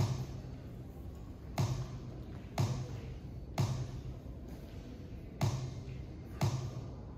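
A series of deep thuds, six of them roughly a second apart, each with a short low boom and an echo that fades away.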